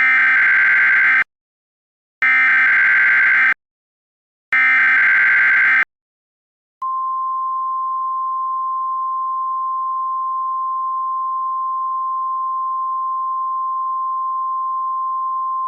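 Simulated Emergency Alert System tones. Three harsh, screeching SAME digital header bursts, each a little over a second long, are followed about a second later by the single steady high NOAA Weather Radio 1050 Hz alert tone, which holds unbroken for about nine seconds.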